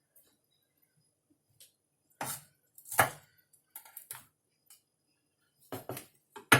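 Kitchen knife cutting on a chopping board: a handful of irregular knocks, the loudest about three seconds in and a quick cluster near the end.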